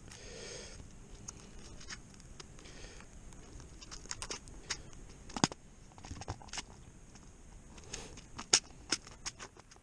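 Scattered small clicks and scratchy handling noises of a muzzleloader rifle being primed, a primer being fitted to its breech.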